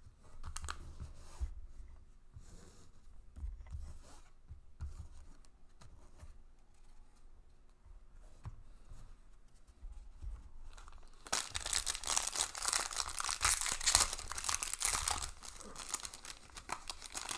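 A foil card-pack wrapper being torn open and crinkled: a loud, dense crinkling rustle that starts a little past halfway and lasts about six seconds. Before it come soft shuffling and light knocks of cards being handled.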